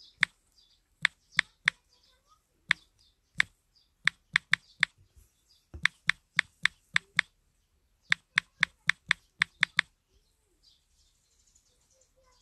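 Typing on a smartphone touchscreen close to the phone's own microphone: sharp, irregular taps, often in quick runs of four or five, that stop a little before ten seconds in.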